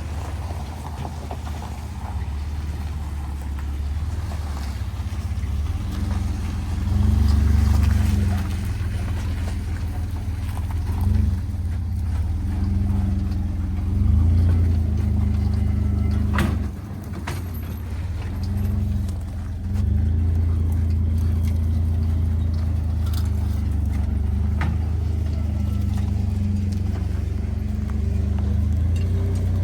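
Truck engine running at low speed while towing a trailer, the revs rising and falling in surges as it pulls through a tight turn on wet, soft ground.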